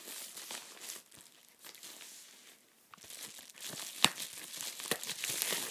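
Packaging crinkling and rustling as it is handled, with small crackles throughout and one sharp click about four seconds in.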